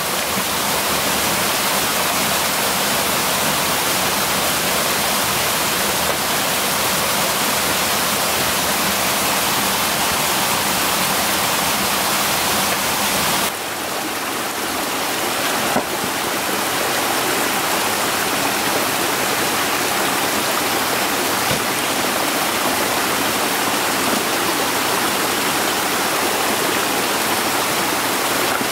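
Steady rushing of water with no other distinct sound, dipping slightly about halfway through.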